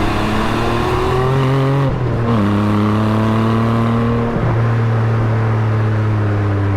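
Porsche 718 Spyder's 4-litre naturally aspirated flat-six on its stock exhaust, running under way as a steady, horrible, characterless drone, the pitch stepping down twice, about two and four and a half seconds in. The owner blames the particulate filters and Euro emissions rules for strangling the engine's sound.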